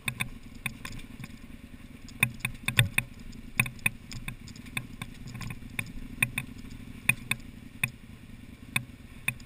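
KTM adventure bike's V-twin engine running at low revs while the bike rolls slowly over loose rock, with sharp, irregular knocks and clatter about once or twice a second.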